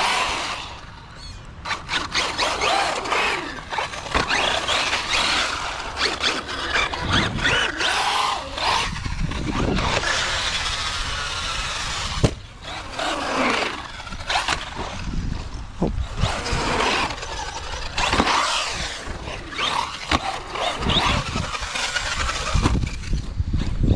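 Brushless motor of a Traxxas Sledge RC monster truck whining up and down in pitch as it accelerates and brakes, with the rattle and knocks of the truck landing and tumbling.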